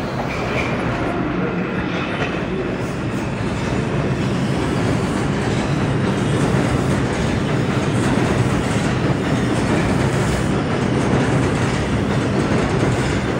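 Subway train running along the track: a steady noise of wheels on rail that grows a little louder over the first half.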